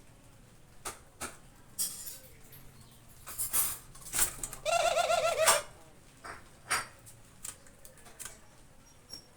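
Albino white Barbary dove (puter) giving one short, quavering coo about halfway through, among scattered sharp clicks and taps.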